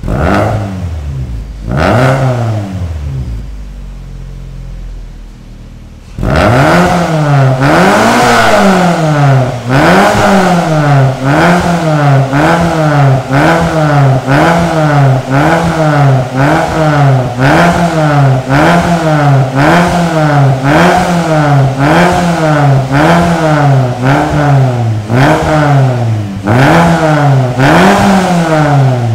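Proton Persona's four-cylinder engine revved through a new full stainless-steel exhaust with a 4-2-1 extractor. Two short blips come in the first few seconds. Then, from about six seconds in, rapid repeated revs follow, about one a second, each rising and falling back.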